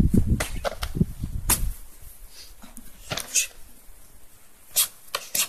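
Karate sparring: a scattering of short, sharp slaps and snaps from strikes, blocks and gi fabric, in small groups, loudest near the end. A low rumble fills the first second and a half.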